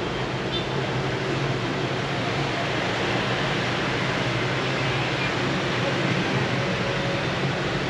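Steady street-traffic noise: motorbike engines and tyres merging into one continuous wash with a faint low hum, nothing standing out.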